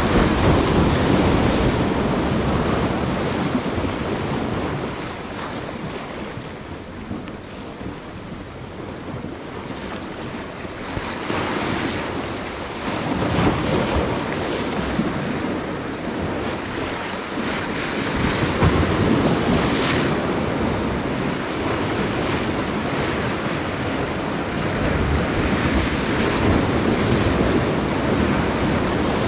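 Ocean waves breaking and washing against a rock jetty, swelling and easing several seconds apart, with wind buffeting the microphone.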